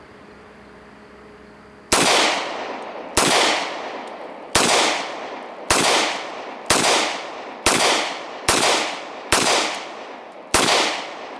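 SIG Sauer P227 .45 ACP pistol firing nine shots about a second apart, starting about two seconds in, each shot ringing off before the next.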